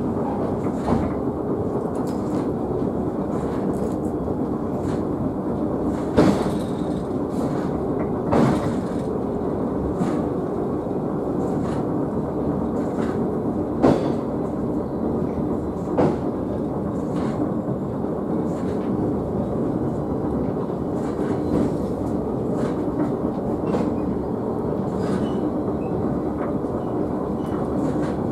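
Sakamoto Cable funicular car running downhill, heard from inside its cab: a steady rumble of wheels on rails with a low hum, broken by a few short, sharp clunks.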